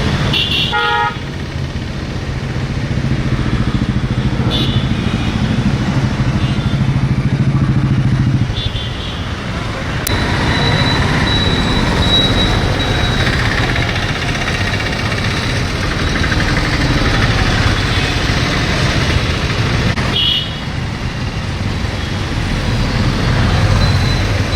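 Road traffic with motorcycle engines running past, and a couple of short horn toots, one near the start and one about twenty seconds in.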